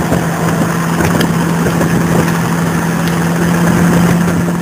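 Boat engine running at a steady speed, a constant low hum with rough noise over it.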